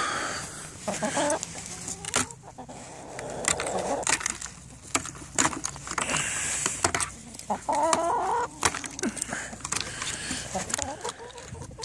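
Chickens clucking close by, with short calls and a clearer call about eight seconds in, amid many sharp clicks and scratching sounds.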